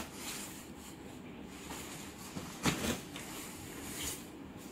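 Soft rustling of a synthetic windcheater jacket's fabric as it is handled, with one brief louder rustle a little past the middle.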